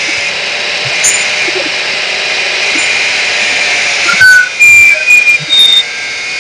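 Power tool working metal, a steady high hiss, broken about four seconds in by several louder short bursts with brief high squeals.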